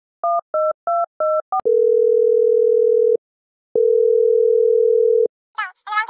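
Telephone keypad tones: five quick two-tone beeps as a number is dialled, then two long steady ringing tones with a short gap between them, a call ringing through.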